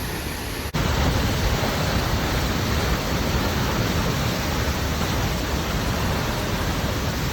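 Steady roar of rushing water from the waterfall and river, a dense even rush. About three quarters of a second in it drops out for an instant and comes back louder and deeper.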